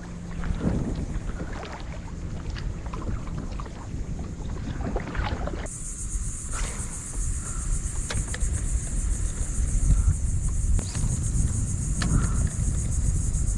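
Kayak paddle strokes dipping and splashing, over wind buffeting the microphone. About six seconds in, a steady high insect drone starts up and carries on.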